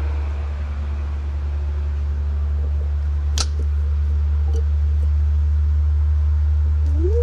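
Polaris Ranger XP 1000 side-by-side's engine idling with a steady low hum. A single sharp click comes about three seconds in, and a short rising-and-falling chirp near the end.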